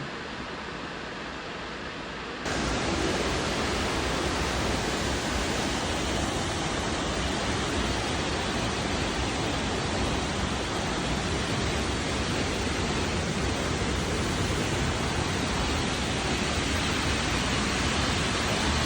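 Steady rush of the spring-fed Potem Falls waterfall, jumping suddenly louder and fuller about two and a half seconds in, then holding even.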